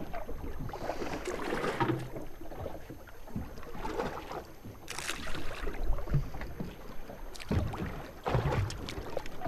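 Water sloshing and slapping against the hull of an anchored boat, with irregular light splashes as handfuls of oat-and-chum mix are thrown over the side.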